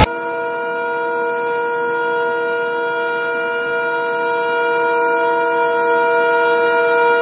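Indian Railways locomotive horn held in one long, unbroken blast, growing slowly louder as the train approaches. It is sounded continuously as a warning to a person at the track.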